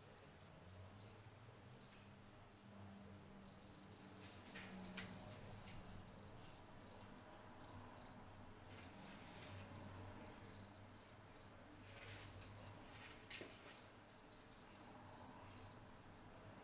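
A cricket chirping: a long run of short, high chirps, about three a second, broken by a pause of about two seconds near the start and stopping just before the end. A few faint scratches sound in between.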